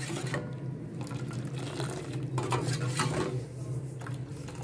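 A metal ladle stirring milk in a steel pot, clinking and scraping against the pot's sides and bottom several times, over a steady low hum.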